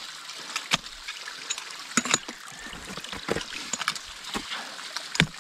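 Ice axes striking waterfall ice, several sharp strikes a second or so apart, over a steady hiss.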